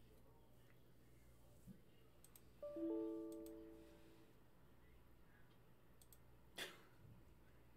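Faint mouse clicks, with a short electronic alert chime of several steady tones about three seconds in that fades away within about a second and a half, and a sharper click near the end.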